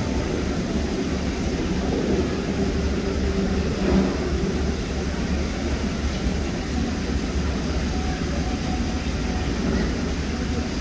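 Steady low rumble of background noise, with a faint indistinct murmur in it about two to four seconds in.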